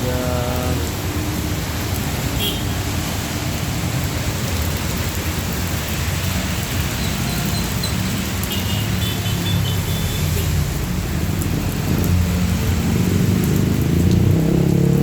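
Rain falling steadily on the street, with traffic running underneath; near the end a vehicle engine climbs in pitch as it accelerates past.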